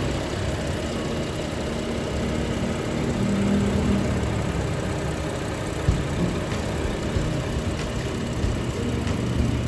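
BMW X5 xDrive35i's turbocharged 3.0-litre inline-six idling steadily and smoothly under the open bonnet.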